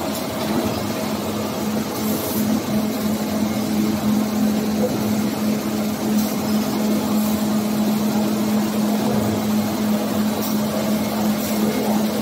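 A tissue-paper converting machine running, unwinding a jumbo tissue roll: steady machine noise with a constant hum that does not change.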